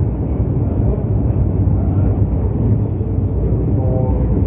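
Funicular car running uphill on its rails: a steady low rumble of the car's wheels and running gear, heard from aboard. A short faint whine rises over it about four seconds in.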